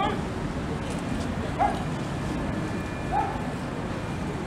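Two short, high yelps about a second and a half apart, over a steady low rumble of city traffic.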